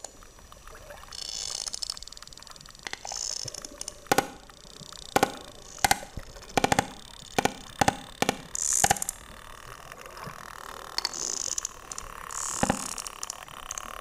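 Sperm whale clicks heard underwater: a string of sharp, loud clicks, irregularly spaced at roughly one every half second through the middle, with a lone one later. A steady water hiss lies beneath them.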